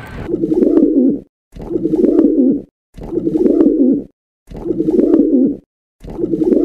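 Pigeon cooing: the same low coo repeated over and over at an even pace, about once every second and a half, with short silent breaks between.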